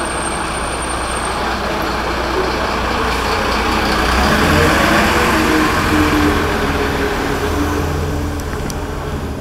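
A heavy motor vehicle running in the street, a low steady hum that swells toward the middle and eases off near the end, under general street noise.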